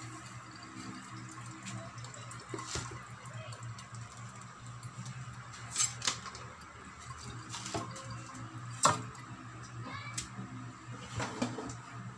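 Water dripping now and then into an aluminium wok holding freshly rinsed chicken wings in a sink, short sharp drops about half a dozen times, over a steady low hum.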